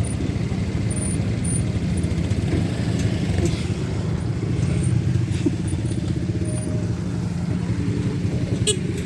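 A motor vehicle's engine running steadily with a low, even hum, and a short click near the end.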